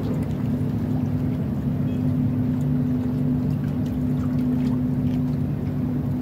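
A steady low engine drone, holding one pitch, with faint scattered light clicks.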